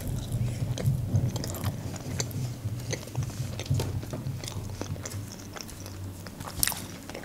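Close-up mouth sounds of a woman chewing a salmon-wrapped sushi roll, many small smacks and clicks, with a sharper click near the end.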